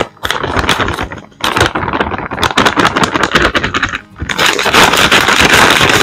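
A flour bag crinkling and crackling loudly as it is handled, crumpled and folded, in three spells with short pauses about a second and a half and four seconds in.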